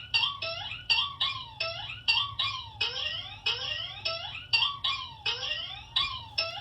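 Cartoon sound effect: a rapid string of short rising swoops, about three a second, each sliding up in pitch with a bright, shrill edge.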